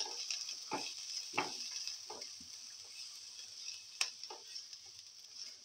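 Onion, garlic and ginger sautéing in oil in a coated frying pan: a steady sizzle, with a spatula stirring and scraping across the pan in separate strokes. There is a sharp click about four seconds in.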